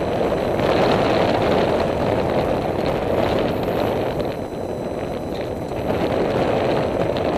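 Steady wind rushing over the camera microphone, an even noise that holds at one level throughout.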